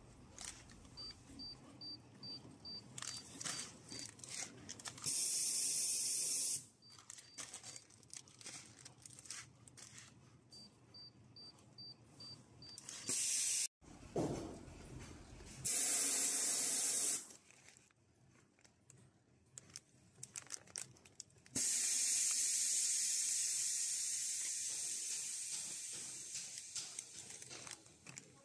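Plastic-film packaging bags crinkling and rustling as they are handled and pressed, broken by four loud bursts of hissing air. The last hiss starts sharply and fades away slowly over several seconds.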